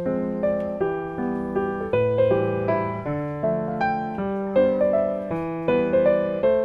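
Background piano music: a gentle melody of single notes over chords at a steady pace.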